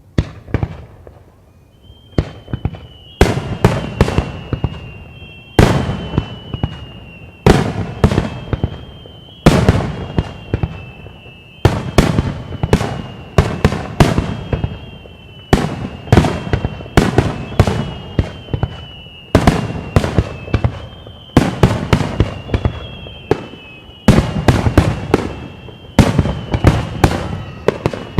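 Fireworks display finale: aerial shells bursting in quick succession, sharp loud bangs every half second to two seconds, each trailing off in rumbling echo. A thin, high, steady whistle-like tone runs behind the bangs from about two seconds in.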